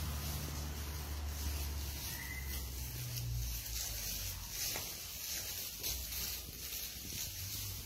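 Rustling and rubbing of sheep moving about on straw bedding, with a low rumble that fades out about three seconds in.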